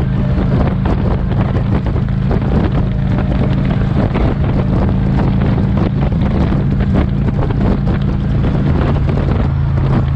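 Motorcycle engine running steadily at freeway cruising speed, heavily overlaid by wind buffeting the microphone; the engine note shifts lower about seven seconds in.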